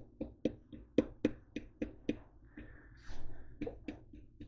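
Plastic spice shaker of ground cinnamon shaken by hand, giving a run of sharp clicks about four a second, with a short break a little past halfway.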